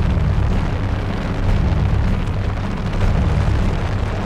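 Helicopter in flight, heard from its open side door: loud, steady rotor and engine noise with wind buffeting the microphone.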